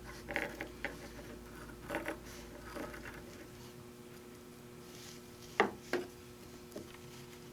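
Fabric and foam stabilizer pieces handled on a work table: faint soft rubbing and shuffling in the first few seconds, then two sharp light taps a little over five seconds in, over a steady low hum.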